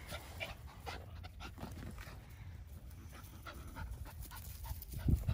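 A dog panting close to the microphone in quick, irregular breaths, louder near the end.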